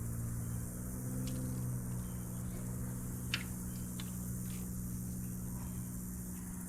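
Steady low hum of an electric fuel pump running to push diesel through the tractor's fuel system while it is being bled, with a few light metallic clicks, the sharpest about three seconds in.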